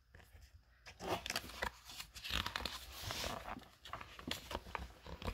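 Paper pages of a picture book being handled and turned: faint rustling with small crinkles and clicks, starting about a second in.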